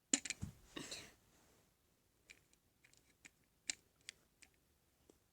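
A brief rustle of handling noise, then a string of light, irregularly spaced clicks and taps.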